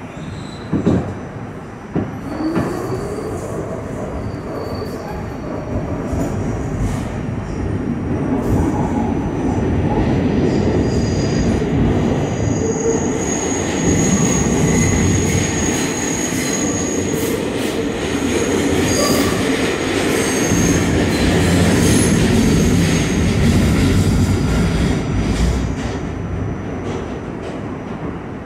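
Pullman Standard R46 subway car heard from inside as it pulls out of a station: two thumps in the first two seconds, then a rising motor whine as the train accelerates. It gives way to a loud, steady rumble of wheels on rail, with high-pitched wheel squeal through the middle of the run.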